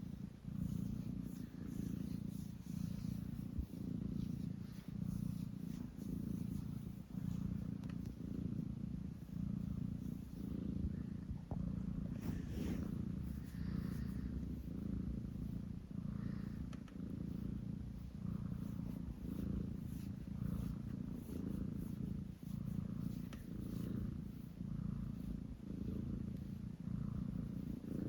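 A domestic cat purring: a steady low rumble that swells and eases with each breath.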